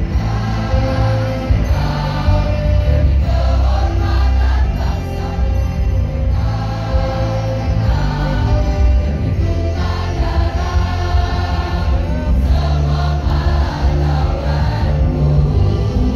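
Choir singing long held notes over a musical accompaniment with a strong bass.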